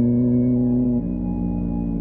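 Ambient music of slow, sustained synth-pad chords with a bell-like ring; the chord changes about a second in.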